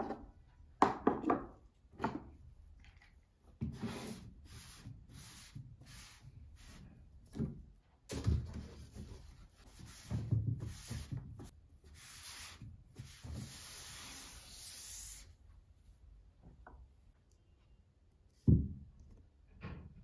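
Small objects knocked down onto a desk, then a cloth wiping the desktop in rhythmic strokes about two a second, going over into several seconds of steady rubbing. A single thump near the end.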